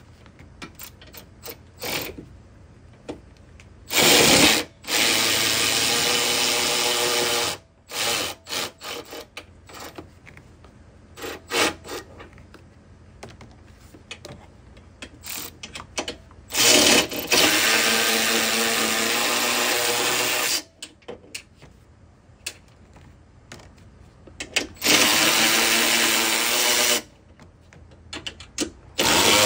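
Cordless ratchet running fasteners at the strut tower in several bursts of one to four seconds, a steady motor whine each time, with short blips of the trigger and tool clicks in between.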